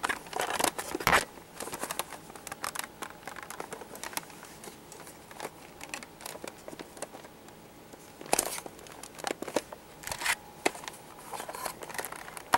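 Mandalorian Assault Transport hard plastic toy ship being handled: scattered clicks, knocks and scrapes of plastic parts, with crinkling rustle. Sharper knocks come about a second in and a few more in the second half.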